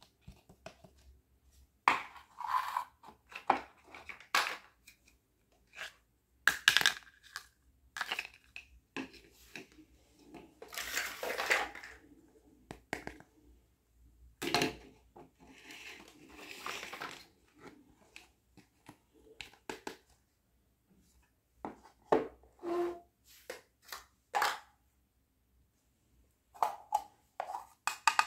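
Miniature hard-plastic toy kitchen pieces (a toy stove, plates and a small pot with a clear lid) being handled, set down and knocked together: irregular clicks and knocks. There are two longer stretches of scraping or rustling near the middle.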